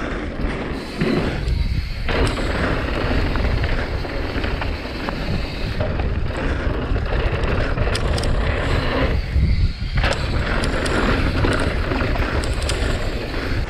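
Santa Cruz Bronson mountain bike descending a rough dirt trail: wind rushing and buffeting the microphone over the rumble of the tyres, with scattered clicks and rattles from the bike. The low rumble eases briefly twice.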